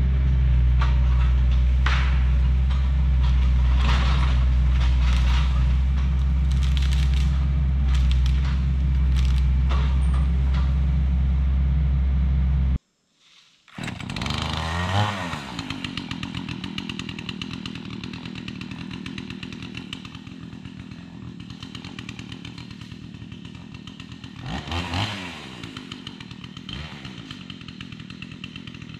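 Takeuchi TL130 track loader's diesel engine running steadily under load, with repeated sharp cracks over it. After a cut about 13 s in, a smaller engine runs with a fast even pulse and revs up and down briefly twice.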